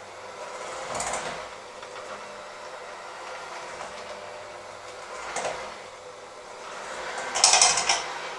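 Electric hand mixer with dough hooks running steadily in a stainless-steel bowl of thick mixture, its motor whining evenly. The hooks scrape against the bowl three times, the last and loudest near the end as the mixer is lifted out.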